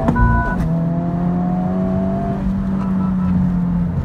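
Honda Civic Type R's 2.0-litre turbo four-cylinder under full throttle, heard from inside the cabin. It revs out in second, breaks for a quick upshift to third with a short beep a fraction of a second in, then pulls again rising in pitch until the driver lifts off a little past halfway.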